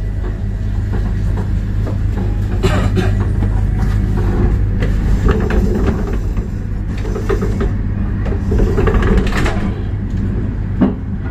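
Passenger train moving slowly through a station: a steady low rumble of the running train, with a few short knocks of wheels and couplings.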